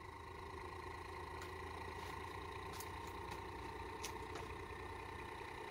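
Homemade pulse motor's heavy six-pole rotor of one-inch neodymium cube magnets spinning at speed on about 12.8 volts: a faint, steady hum and whir with a few light ticks.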